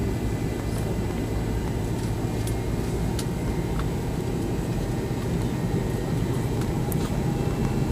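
Jet airliner heard from inside the passenger cabin: a steady low rumble and hum from the MD-80-series engines at low power, with a few faint clicks.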